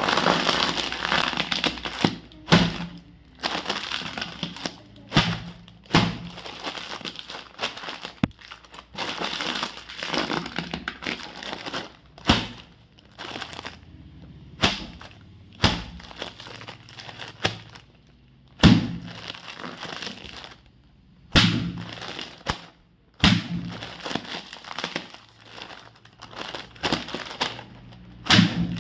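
Potato chip crunching and snapping sound effects: a long irregular string of sharp cracks between stretches of crinkly crackling rustle.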